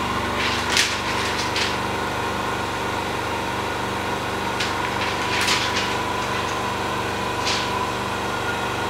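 Steady mechanical hum of workshop machinery, holding a fixed tone, with a few short scraping swishes as the roller of a manual OCA laminating machine is worked over tablet glass: about a second in, around five and a half seconds, and near the end.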